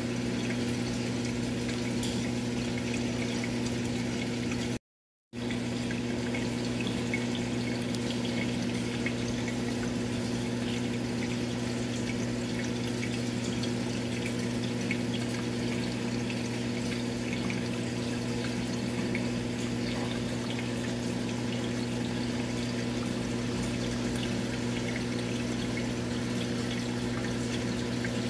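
Aquarium pump humming steadily under a continuous trickle and bubbling of water. The sound cuts out completely for a moment about five seconds in.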